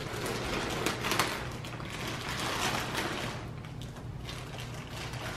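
A plastic poly mailer bag rustling and crinkling as it is handled and pulled open by hand.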